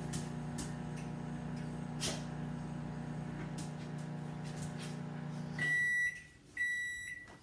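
Microwave oven running with a steady hum that cuts off about five and a half seconds in, followed by two long, high-pitched beeps signalling that the heating cycle has finished.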